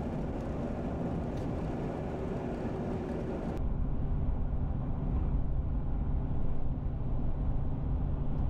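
2011 Chevrolet Silverado 5.3L V8 pickup cruising on the highway while towing, heard from inside the cab as a steady low engine and tyre rumble. About three and a half seconds in the sound changes abruptly, the higher hiss dropping away and the rumble growing a little louder.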